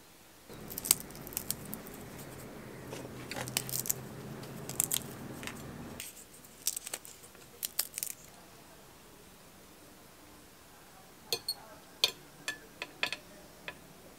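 A metal fork clinking and scraping against a plate while eating, in clusters of sharp clicks. During the first half a low steady hum runs under the clinks and stops abruptly about six seconds in.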